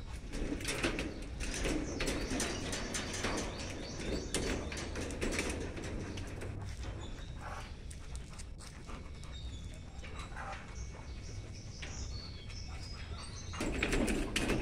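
White German Shepherd puppy drinking from a cage water bottle, licking at the spout in quick clicks for the first several seconds, then quieter.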